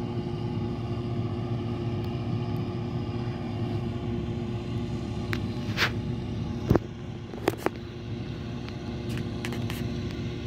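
Steady drone of heavy diesel machinery running in a field: a forage harvester loading chopped grass into KamAZ trucks. A few sharp clicks stand out a little past the middle.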